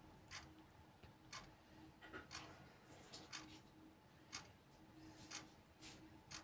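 Faint, irregular light clicks and taps of kitchen utensils and dishes being handled on a counter, about ten short ticks spread unevenly over a few seconds.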